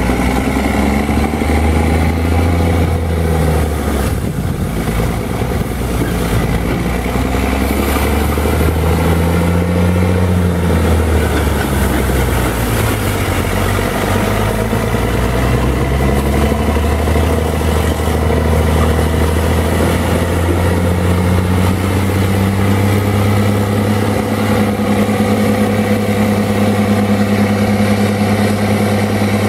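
Caterpillar 3306B six-cylinder turbo diesel of a Joy 850 cfm air compressor running under load, its pitch wavering up and down through the first half and then holding steady, with a hiss of compressed air feeding the pneumatic track drill.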